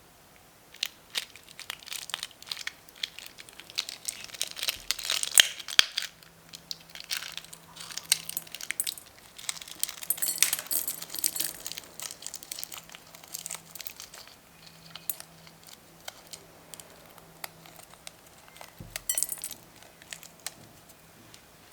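Slime being worked by hand together with mini balloons: a crinkly crackling with many small sharp clicks and pops, coming in uneven bursts and loudest in two stretches a few seconds in and about halfway through.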